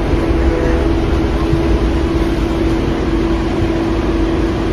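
KLIA Express airport train running, heard from inside the carriage: a steady low rumble under a constant humming tone.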